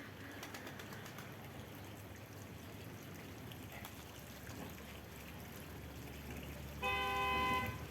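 A car horn sounding one short beep about seven seconds in, over a steady low background rush.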